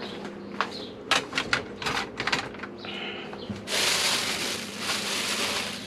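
Kitchen prep handling sounds: a few light knocks and clicks of things being moved on the counter, then about two seconds of loud, even hiss-like noise, over a faint steady hum.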